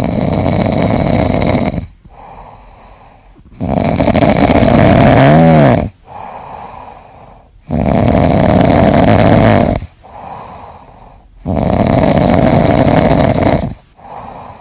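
Orange tabby kitten asleep on its back, snoring loudly: four long snores of about two seconds each, with softer breaths in between.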